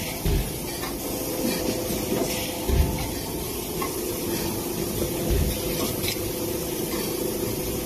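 Plastic cup production line machinery running: a steady airy hiss over a machine hum, with a low thud about every two and a half seconds.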